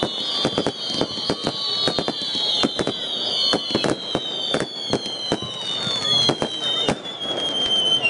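Fireworks going off in a rapid, irregular run of sharp bangs and crackles. Over them, several high whistles overlap, each falling slowly in pitch.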